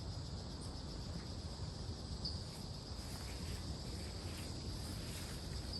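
Steady high-pitched insect chorus, cricket- or cicada-like, swelling slightly every few seconds, over a low rumble.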